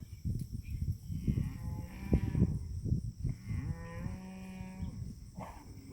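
Cattle mooing: two long, drawn-out moos, the second held at a steady pitch, over a low rumbling noise.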